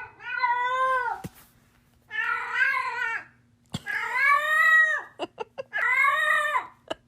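A cat meowing loudly: four long, drawn-out yowling meows, each about a second long, with short pauses between them.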